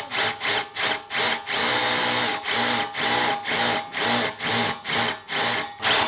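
Milwaukee M12 FID2 brushless impact driver driving a small screw in its self-tapping screw mode, the motor spinning up and cutting out in quick short bursts about three a second, with one longer run about two seconds in.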